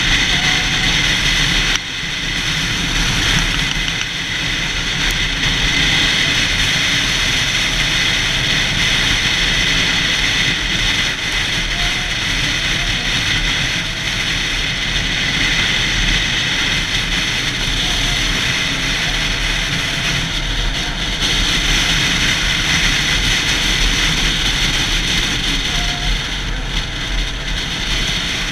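Yamaha YZF-R6 inline-four motorcycle being ridden at a steady pace, its engine running under heavy, steady wind rush on a bike-mounted GoPro's microphone.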